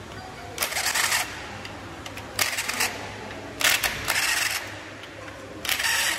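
Cordless impact wrench hammering bolts loose in four short bursts, each about half a second long.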